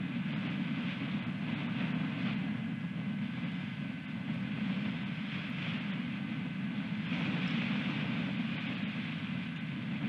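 Storm wind blowing against the microphone: a steady low rumble with gusts that swell and ease, one rising about seven seconds in. A faint steady high tone runs underneath.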